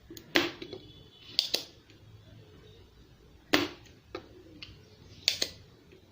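Spring-loaded desoldering pump (solder sucker) being cocked and fired: sharp snaps every second or so, some in quick pairs, as solder is sucked off the leads of faulty capacitors on a power-supply board.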